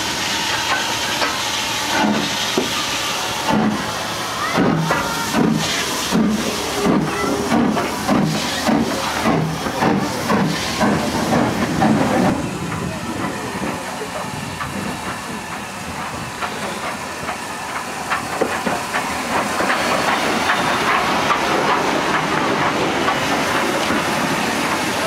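LMS 3F 'Jinty' 0-6-0 tank locomotive 47493 working under steam: its exhaust beats come at about two a second for roughly ten seconds, then give way to a steady hiss of steam.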